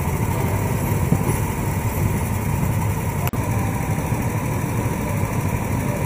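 Small go-kart engines running steadily at idle, with a low, even engine noise. The sound drops out briefly a little over three seconds in.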